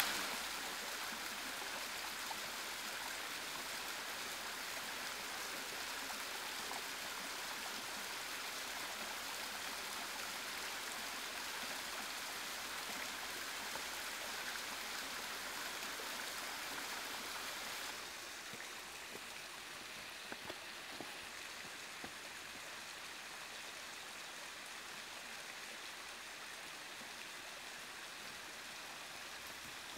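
Steady rush of a small woodland waterfall and stream running over rock ledges, which drops a little quieter about two-thirds of the way through, with a few faint clicks soon after.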